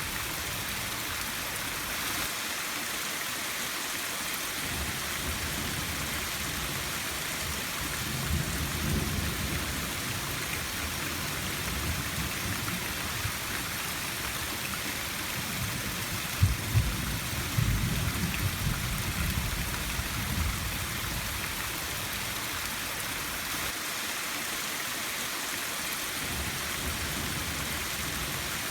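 Steady rain with rolling thunder: a low rumble about eight seconds in, and a louder, longer one about halfway through that opens with a couple of sharp cracks.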